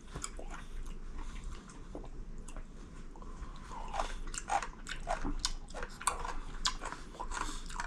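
A person chewing a mouthful of cubed radish kimchi (kkakdugi) close to the microphone: irregular mouth clicks and crunches, several a second.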